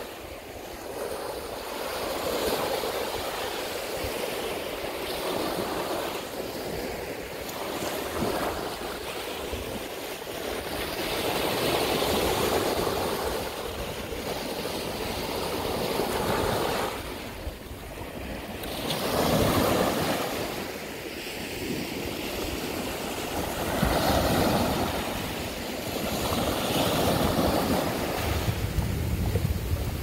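Ocean surf breaking and washing up on a sandy beach, swelling and easing every few seconds.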